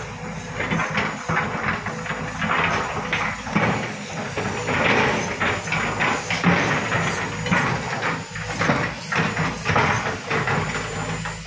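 Volvo crawler excavator's diesel engine running under load, with stone grinding and clattering irregularly as the bucket pushes and levels a pile of broken rock.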